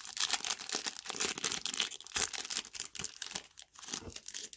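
Wrapper of a trading-card pack being torn open and crinkled by hand, a dense run of crackling that thins out near the end.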